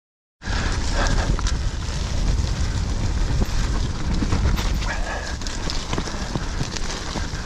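Mountain bike riding fast down a rough dirt trail: tyres on loose ground and the bike rattling and knocking over bumps, over a heavy low rumble. It starts abruptly about half a second in.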